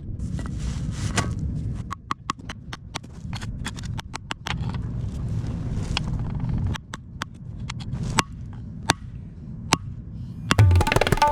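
A low motor rumble with many sharp clicks and knocks scattered over it. Hand-drum music comes in near the end.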